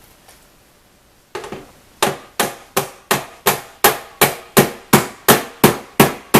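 Hammer tapping a metal hinge pin back into a glove box hinge: a light knock or two, then about a dozen sharp, evenly paced strikes, roughly three a second, starting about two seconds in.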